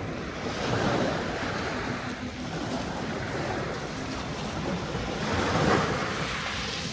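Small waves washing up on the shore, the wash swelling about a second in and again near the end, with some wind on the microphone.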